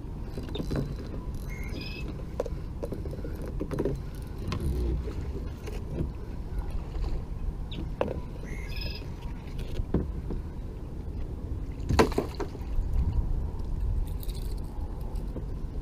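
Water sloshing against a kayak hull over a steady low rumble, with scattered knocks and clicks of paddle and fishing gear against the boat; the loudest sharp knock comes about twelve seconds in.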